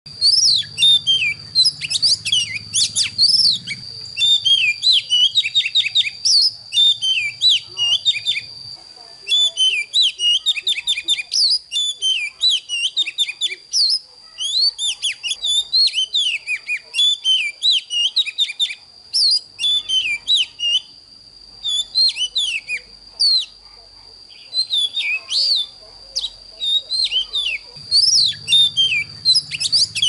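Oriental magpie-robin singing: long runs of quick, varied whistled notes and slurs with short pauses between phrases, over a steady high-pitched tone.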